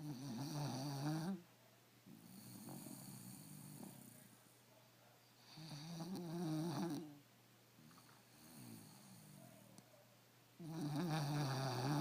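A sleeping puggle snoring: three loud rasping snores about five seconds apart, each followed by a softer, quieter breath.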